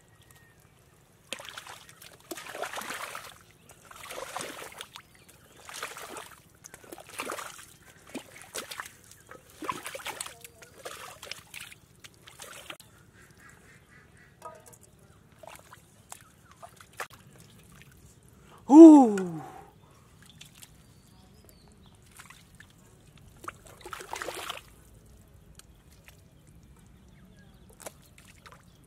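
Muddy water splashing and sloshing as it is scooped and stirred by hand with a small metal bowl, a burst about every second for the first half, with another splash later on. About two-thirds of the way through comes one loud call falling in pitch, lasting about a second, the loudest sound here.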